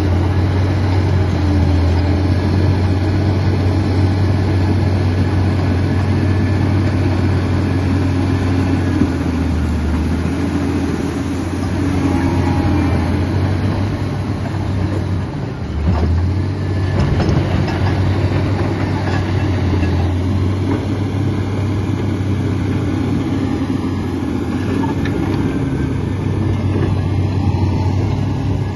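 Komatsu D85 bulldozer's diesel engine running steadily at working speed, its low note briefly dipping and recovering twice, about ten and fifteen seconds in.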